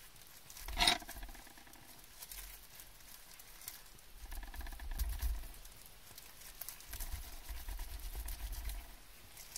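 Cat eating raw fish roe: small, soft, repeated chewing sounds, mixed with gloved hands handling a raw isaki (threeline grunt) fish. A brief, sharper sound comes about a second in.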